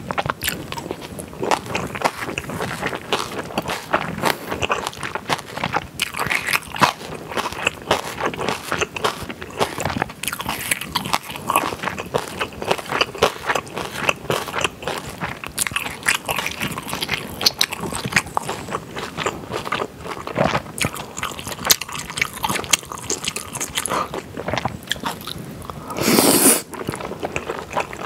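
Close-miked chewing and mouth sounds of a person eating jajangmyeon noodles in black-bean sauce, a dense run of wet clicks and crunchy bites, with one louder noodle slurp near the end.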